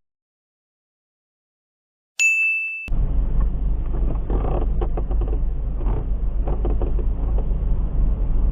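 Silence, then one short high-pitched electronic beep about two seconds in, followed by steady low vehicle cabin and road rumble.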